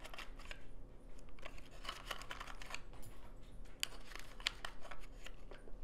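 A small cardboard raisin box handled in the fingers as raisins are picked out of it: faint, scattered clicks and rustles, with a few sharper clicks near the middle.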